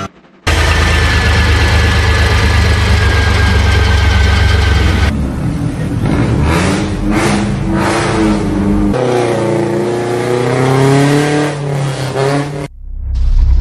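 Car engine running with a heavy steady rumble for about five seconds, then revving repeatedly, its pitch rising and falling, before cutting off abruptly near the end.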